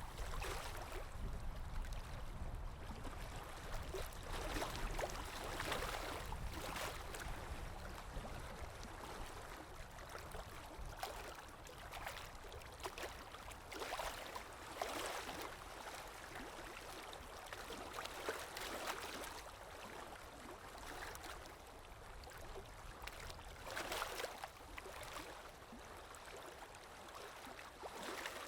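Sea waves breaking and washing in: a steady rush of water that swells every few seconds.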